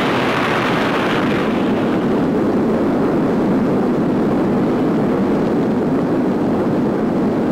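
Roar of an atomic bomb airburst on a newsreel soundtrack: a dense, steady rumbling roar that sets in suddenly just before and carries on without a break, a little brighter in its first second or so.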